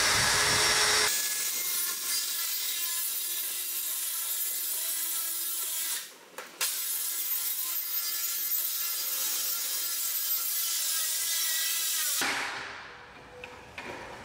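A DeWalt circular saw cutting across a plastic ebb-and-flow tray: a steady cutting noise with a motor whine, broken by a short pause about six seconds in, then it stops a couple of seconds before the end.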